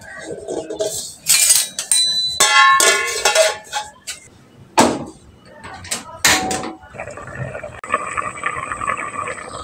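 Kitchen clatter: metal pots, pans and utensils knocked and set down, one of them ringing briefly, followed by a steadier mixed noise near the end.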